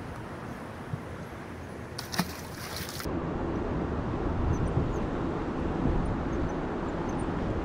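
Wind buffeting the microphone and water noise around a boat, with a light click about a second in and another about two seconds in. About three seconds in the sound changes abruptly to louder, lower wind and water rumble.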